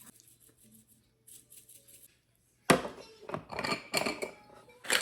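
Kitchenware being handled: after some faint small sounds, a sharp knock about halfway through, then a few irregular clattering knocks of dishes or utensils.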